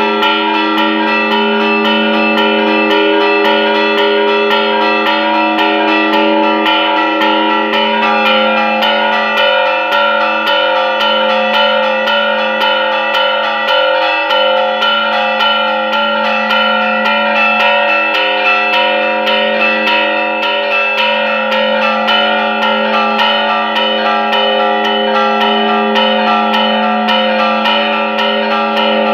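Church bells rung in a festive repique: a fast, unbroken run of strikes whose ringing tones carry on over one another.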